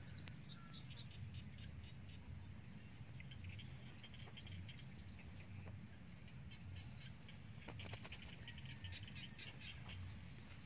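Faint rustling of tall grass as a small monkey and a dog push through it, heard as scattered short ticks over a low rumble, with a steady high-pitched tone in the background.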